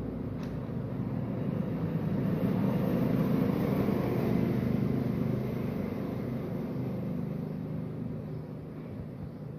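A motor vehicle passing by: a low engine hum that swells to its loudest about halfway through and then fades away.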